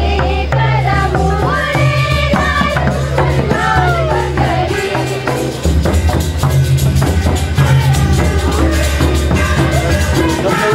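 Adivasi folk dance song: voices singing over a steady low drum beat and jingling, rattling percussion, growing louder about halfway through.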